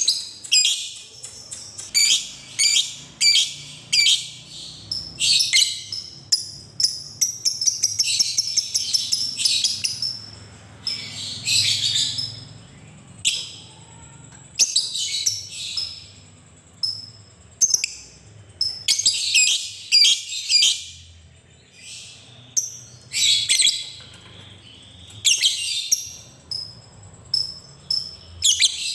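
A caged lovebird chattering in bursts of rapid, shrill notes, sometimes strung into longer unbroken runs of fast chatter. This is the long chattering call that Indonesian keepers call 'ngekek'.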